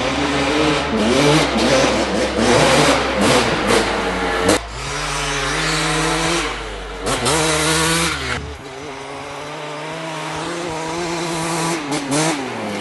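2004 Honda CR250R single-cylinder two-stroke dirt bike engine, fitted with an FMF pipe and silencer, revving and running under load, its pitch rising and falling with the throttle. The sound breaks off and changes abruptly a couple of times, then runs steadier and grows louder near the end.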